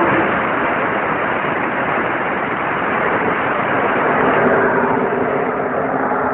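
A pack of NASCAR Xfinity Series stock cars with V8 engines running flat out past the frontstretch at the green-flag start: a loud, unbroken wall of engine noise.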